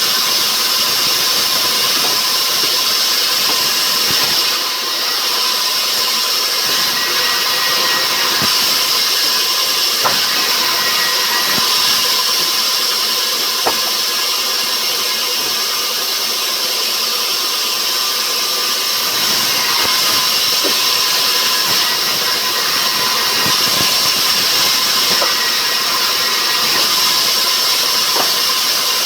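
Sawmill machinery running steadily with a loud, even mechanical noise and a constant hum, broken by a few faint knocks.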